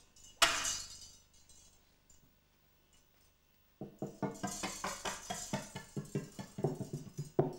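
Kitchen-utensil percussion: a single sharp metallic strike about half a second in that rings out for about a second. After a quiet gap, from about four seconds in, a wire whisk taps out a quick, even run of light clinking strikes, about five a second.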